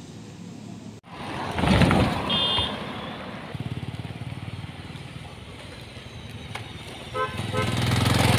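Road traffic: vehicles passing with short horn toots, a high one about two seconds in and a few lower ones near the end, while a vehicle engine grows louder toward the end.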